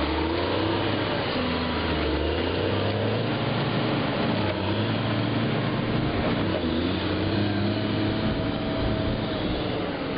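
Caterpillar 140G motor grader's diesel engine running under load as the grader drives off, its note stepping up and down in pitch several times.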